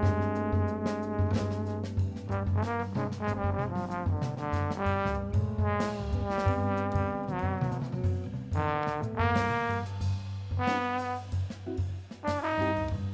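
Music: a solo wind instrument playing a melody with bent and slurred notes over a steady low accompaniment.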